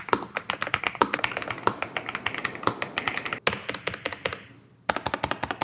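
Lofree Flow 2 mechanical keyboard with PBT double-shot keycaps being typed on: a fast, dense run of key clicks, breaking off briefly twice in the last couple of seconds before more key presses.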